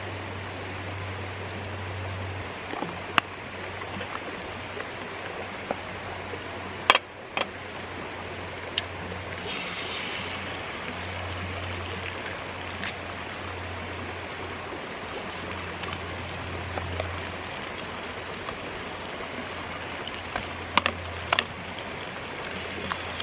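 Creek water flowing steadily over stones. A few sharp knocks cut through it, the loudest about seven seconds in and a pair near the end, as eggs are cracked on the frying pan. About ten seconds in there is a brief sizzle as an egg goes into the hot pan.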